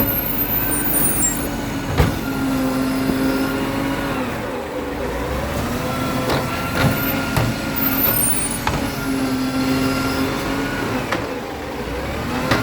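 Garbage truck engine running at raised, steady revs, its pitch sagging and recovering twice, with a sharp knock about two seconds in and faint high squeaks.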